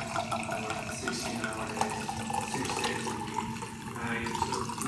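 Tap water running and splashing into a sink.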